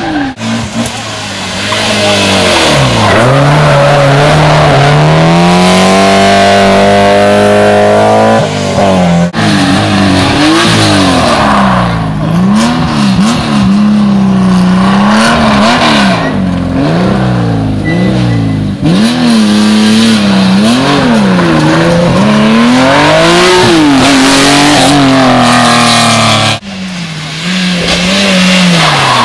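Historic rally car engines revving hard through a special stage, the pitch climbing and dropping quickly with gear changes and lifts off the throttle. Several clips are cut together, with abrupt breaks between cars.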